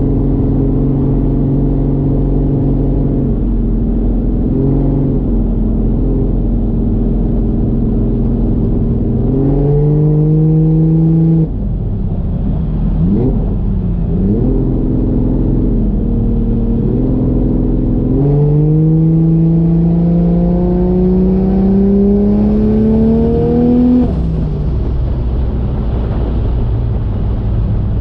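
A 1JZ inline-six engine in a Fox Body Mustang cruising at part throttle. Its revs climb for a couple of seconds about a third of the way in and drop off sharply, then rise and fall a few times. In the second half the revs climb steadily for several seconds and cut off abruptly near the end.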